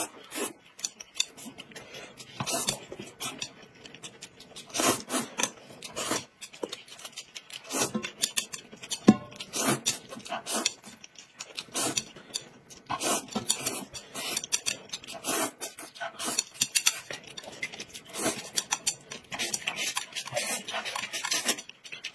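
Eating sounds: noodles slurped in quick, irregular pulls and chewed, with chopsticks clicking and scraping against a plate.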